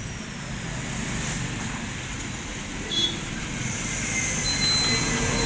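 Steady low mechanical rumble that grows louder in the second half, with a rising hiss and a thin, steady high whine joining near the end, and a single click about three seconds in.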